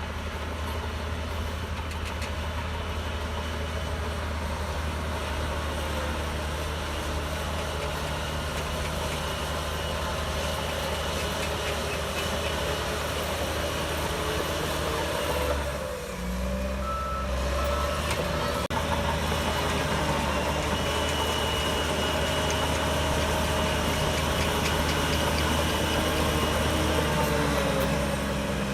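Diesel engine of a Shantui DH17C3 bulldozer running steadily under work. About halfway through, its note briefly dips, then it comes back slightly louder.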